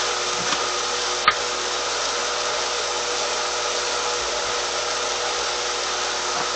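Steady hiss with a faint constant hum from the grill where chicken strips are cooking in oil, broken once by a single sharp click about a second in.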